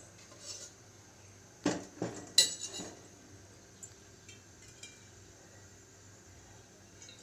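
Aluminium cooking pot clanking on a gas stove: three ringing metal knocks close together about two seconds in, then a few faint ticks.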